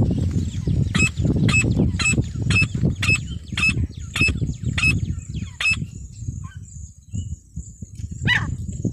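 Female francolin (teetar) calling: a quick series of about ten short, sharp notes, roughly two a second, then after a pause a single longer note falling in pitch near the end, over a steady low rumble.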